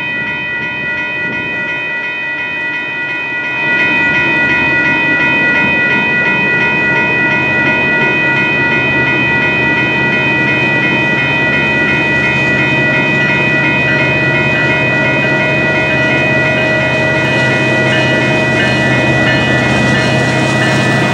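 Two WCH electronic railroad crossing bells ringing rapidly and steadily as the crossing is activated. About four seconds in, a broader rumble comes in under them, and a low drone grows near the end as the approaching Union Pacific freight train draws near.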